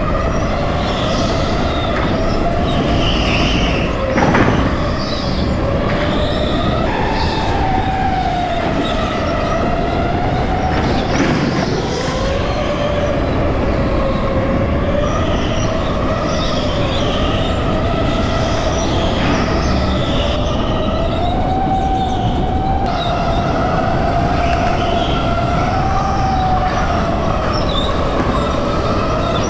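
Electric go-kart motor whining at speed, its pitch rising and falling as the kart speeds up and slows through the corners, over a low rumble. A single sharp knock about four seconds in.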